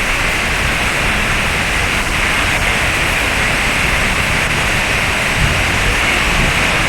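Waterfall's falling water: a loud, steady rush.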